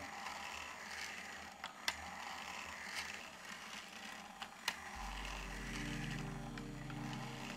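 A motor-driven 3D-printed plastic V-twin engine model turning over: a quiet mechanical whirr with a few sharp clicks and creaks from its plastic moving parts. Low sustained music notes come in about five seconds in.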